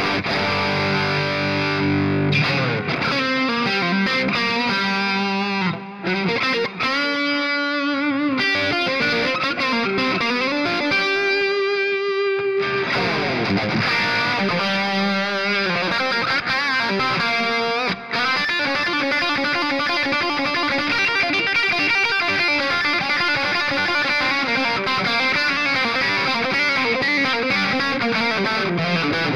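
Giannini Pro Line 2 electric guitar played with distortion: fast lead runs and string bends, with one long held note and vibrato about halfway through.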